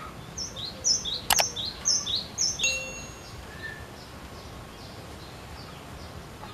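Cinereous tit (glatik batu) singing a fast run of about five two-note phrases, each a high whistled note dropping to a lower one, ending on a short held note; fainter notes follow. A sharp click sounds about a second in.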